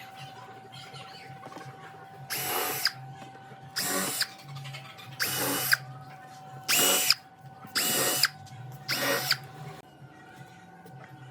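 A power drill run in six short bursts, each about half a second long, its motor whine starting and stopping with each trigger pull, over a faint steady hum.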